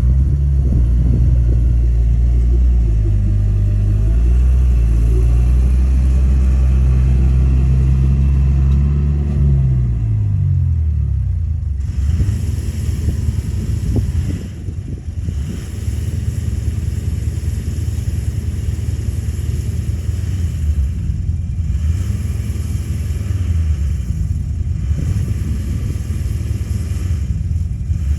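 Heavy diesel engine of a Komatsu D31A bulldozer running under load with a deep, steady note. About ten seconds in, the pitch drops and the sound becomes rougher, with a noisy upper layer that comes and goes in stretches of a few seconds.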